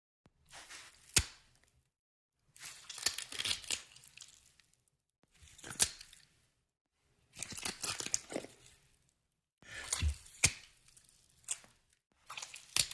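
A run of about six short sound effects, each a burst of tearing and crunching noise with a sharp crack in it, separated by moments of dead silence.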